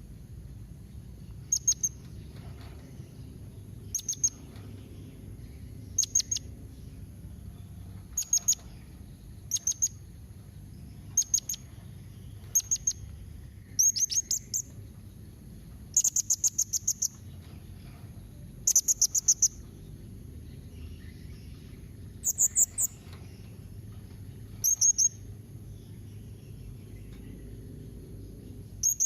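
Blue-crowned hanging parrot (serindit) giving short, high-pitched bursts of a few rapid chirping notes, repeated every second or two. It is the calling, rapid-fire song that keepers play to get a caged serindit to answer. A thin steady high tone and a low hum run underneath.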